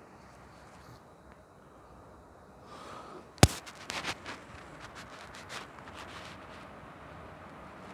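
A loud, sharp metallic bang about three and a half seconds in, then a string of lighter clanks and knocks over the next three seconds, from a freight train of HŽ Eas open wagons and their couplings.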